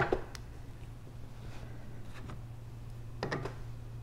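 Light metallic clicks and taps of brass fittings being handled as a pressure gauge is fitted between a pressure washer's high-pressure hose and its unloader valve: a few near the start and a short cluster about three seconds in, over a steady low hum.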